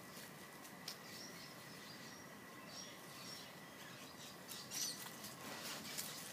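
Faint outdoor ambience under trees with scattered short, high bird chirps, a few light clicks and a faint steady high-pitched tone.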